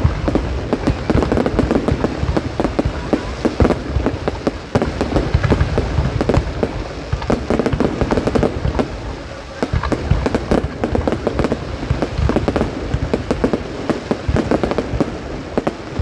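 Fireworks display: a dense, continuous barrage of bangs and crackling bursts, easing briefly twice, about four and a half and nine and a half seconds in.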